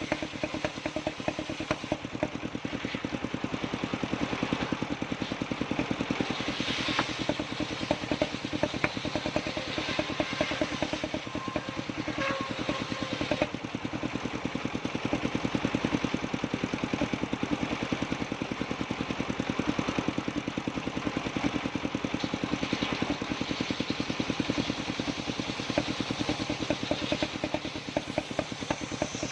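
Engine of a circular sawmill running steadily, with a fast, even firing beat.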